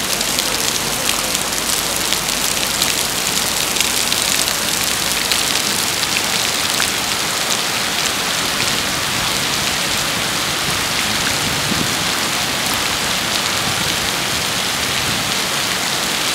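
Steady rain falling on open water and a wet paved quay: a dense, even hiss sprinkled with many fine drop ticks.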